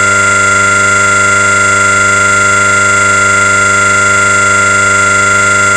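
Loud, steady electronic drone of many fixed pitches sounding together, held without change throughout: audio run through the 'Colorama' distortion effect.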